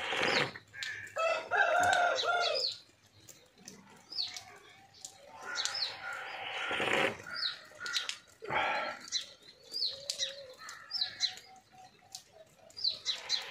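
Domestic chickens clucking and calling, with several longer calls, while small birds chirp again and again.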